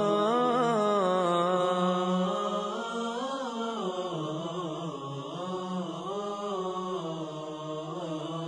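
A male voice chanting a slow Arabic nasheed melody without words, its pitch rising and falling in long, wavering phrases.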